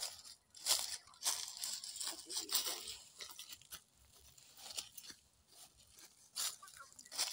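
Dry autumn leaves and brushwood crunching and rustling in irregular bursts, with a few sharp cracks.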